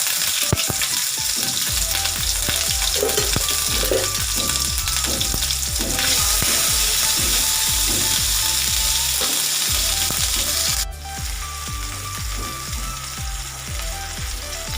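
Onion, garlic and ginger pastes frying in hot oil, a steady sizzle with the scrape and clink of stirring; it gets a little quieter about eleven seconds in. Soft background music runs underneath.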